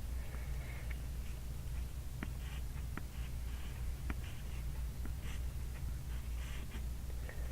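Pencil writing kanji on workbook paper: short scratchy strokes with small sharp taps of the lead between them, over a steady low hum.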